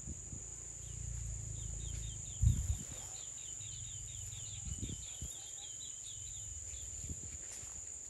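Steady high-pitched drone of insects in wetland vegetation, with a bird's rapid trill of short repeated notes from about a second and a half in, lasting about two seconds. Under it a low rumble, and a single low knock about two and a half seconds in, the loudest sound.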